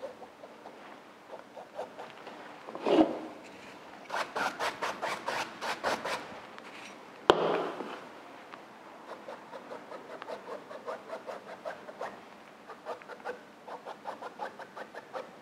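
A fine paintbrush with acrylic paint stroking back and forth across stretched canvas: many short strokes, with a fast run of them a few seconds in. A single sharp knock comes about halfway through.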